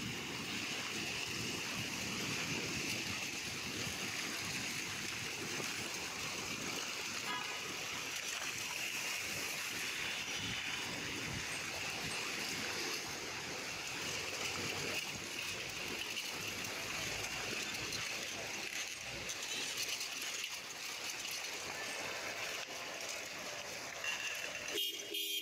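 Cycle rickshaw wheels rolling through standing water on a flooded road, a steady wash of splashing, with street traffic around it.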